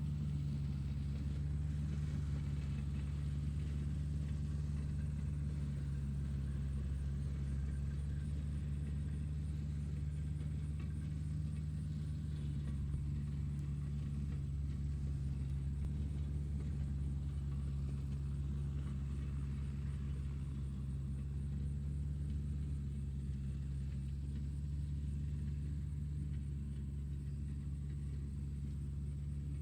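Tractor engine running steadily: a low, even drone that holds at the same pitch and level throughout.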